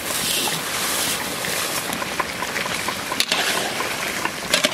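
Tomato chutney hissing and sizzling in a metal wok as a heap of sugar is poured in, with a couple of sharp knocks of the metal spatula against the pan about three seconds in and near the end.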